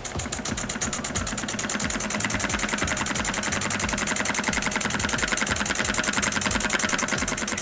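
Small 1931 IND-X 200 toy steam engine with a brass slide-valve cylinder, running fast under steam, giving a rapid, even chuffing and clatter as the brass flywheel spins.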